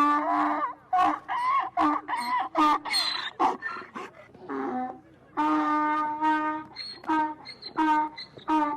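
Farm animal calling: a series of short, steady-pitched calls in quick succession, with one longer call about five and a half seconds in.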